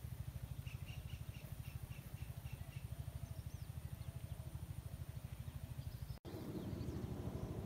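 Rural pond-side ambience: a low, steady rumble underneath, with a bird giving a run of short chirps, about four a second, in the first few seconds. About six seconds in the sound cuts out for an instant and returns with the rumble louder.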